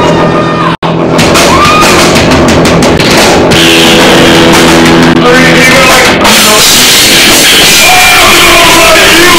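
Live rock band playing loudly: electric guitar and drum kit with a man singing. The sound drops out for an instant about a second in.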